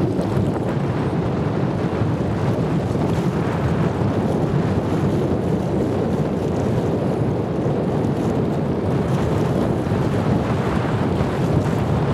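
Steady wind buffeting the microphone, a constant low rumbling noise, over the wash of small waves at the water's edge.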